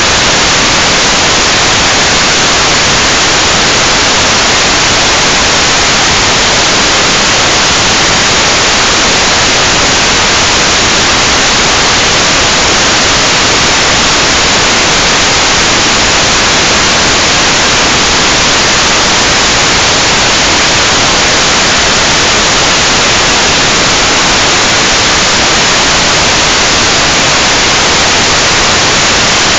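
Loud, steady static hiss from an analog FPV video receiver picking up no signal, so the DVR records only noise.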